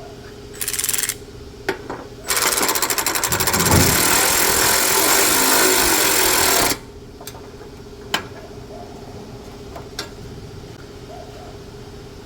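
Impact wrench tightening the bolts on a newly fitted exhaust pipe and muffler: a short burst, then a run of about four seconds of rapid hammering, followed by a few sharp clicks.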